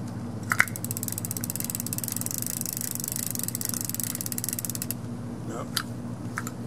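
Fishing reel being cranked, its mechanism clicking rapidly and evenly from about half a second in until about five seconds, over a steady low hum.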